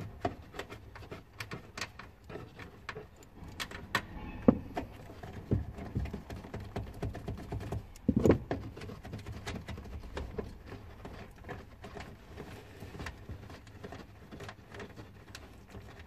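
Irregular light clicks, taps and rustles of hands working loosened 10 mm taillight nuts off their studs and handling the nuts, with a couple of louder knocks about 4 and 8 seconds in.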